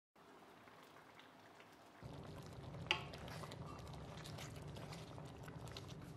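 Thick beef stew sauce bubbling at a simmer in an uncovered stainless steel pan, a faint crackle of small pops as it thickens. A low steady hum joins about two seconds in, and a single sharper click comes about three seconds in.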